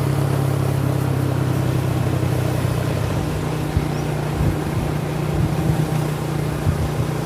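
Steady drone of a motor vehicle engine with road noise while driving, the horn silent; a few short low thumps in the second half.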